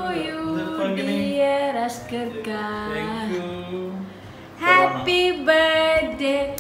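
Music with singing, in a woman's and a child's voices, held notes that slide from one pitch to the next; it gets louder about four and a half seconds in.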